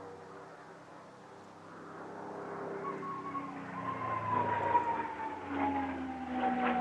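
P-51D Mustang's Packard Merlin V12 engine in a display flypast, growing louder from about two seconds in as the aircraft approaches, its pitch sliding slowly down.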